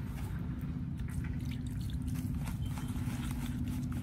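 Hands kneading and squeezing wet bran fishing bait in a plastic bowl, with soft wet squelches and ticks, mixed damp and slightly sticky for bait. A steady low engine hum runs underneath.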